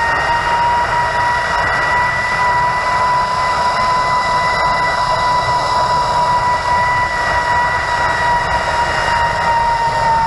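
Zip-line trolley pulleys running fast along the steel cable, making a loud steady whine that rises slightly in pitch over the first few seconds and then holds, with wind rushing over the microphone.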